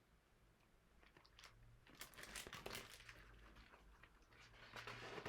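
Faint paper rustles and small clicks of a picture book being handled as a page is turned.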